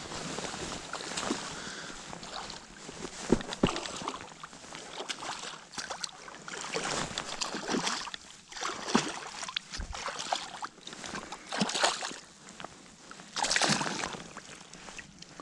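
A small pike thrashing and splashing at the water's surface as it is reeled to the bank and scooped into a landing net, in irregular bursts of splashing with a louder burst of splashing near the end.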